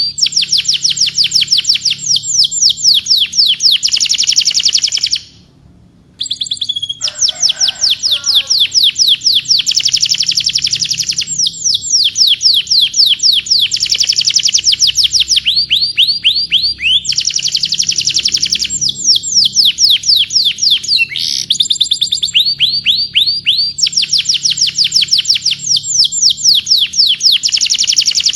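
Domestic canary singing long rolling trills: fast runs of the same sweeping note repeated many times a second, phrase after phrase, with a short break about five seconds in and a lower warble just after it.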